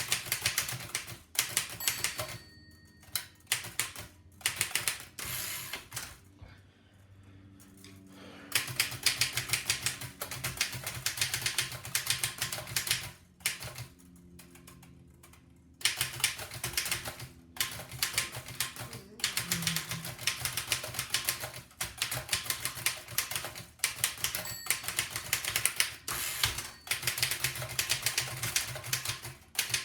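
1905 Fox No. 3 upstrike typewriter being typed on fast: rapid runs of clacking key strikes, pausing twice for about two seconds each.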